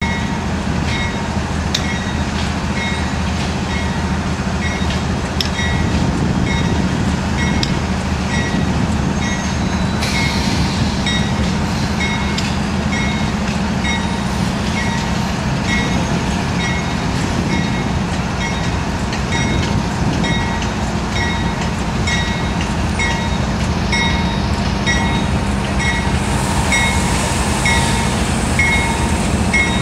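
Union Pacific diesel locomotive running slowly past at close range with a steady low engine rumble, leading a train of freight cars, while its bell rings steadily about every three-quarters of a second. A hiss rises near the end.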